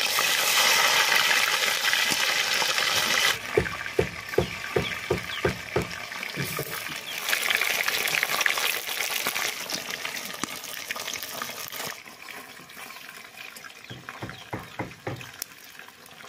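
Whole fish frying in hot oil in an iron kadai, a steady hissing sizzle that is loudest as the fish go in and eases off later. About four seconds in, a quick run of sharp clicks comes at about three a second, and a few more come near the end.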